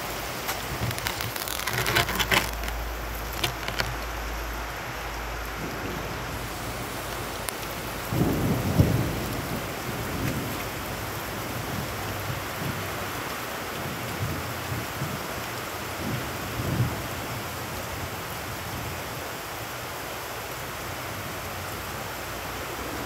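Heavy rain pouring onto wet pavement and puddles in a steady hiss, with low rumbles of thunder; the loudest swell comes about eight to nine seconds in.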